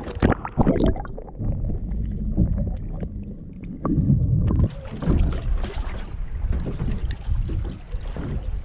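Water splashing and sloshing as a small hogfish is let go at the surface, heard muffled with the microphone dipped under the water. About halfway through, the microphone comes back out of the water and wind noise and water lapping take over.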